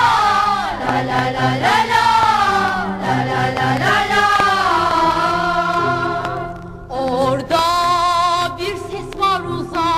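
Background music: a singing voice with long, wavering held notes over a steady low accompaniment.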